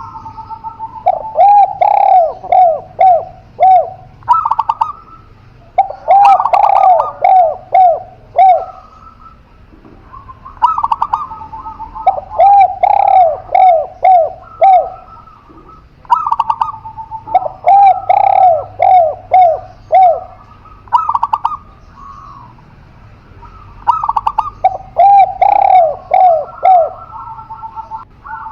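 Zebra dove and spotted dove cooing. The phrases repeat every few seconds, each a quick run of five or six rounded coos, with higher, held notes between the runs.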